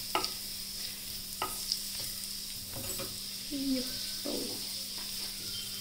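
Chopped garlic sizzling in hot oil in a non-stick frying pan, fried to light brown, with a wooden spatula stirring and scraping through it about four times.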